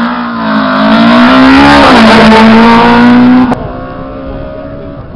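Rally car engine at high revs, very loud: the note climbs, drops sharply at a gear change about two seconds in, then holds. About three and a half seconds in it falls abruptly to a quieter, more distant engine note.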